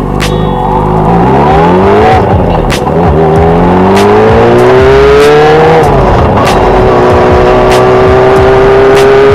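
Yamaha R6's inline-four engine under acceleration. Its pitch rises, drops at a gear change about two seconds in, climbs again, drops at a second shift near six seconds, then holds steady at cruising speed.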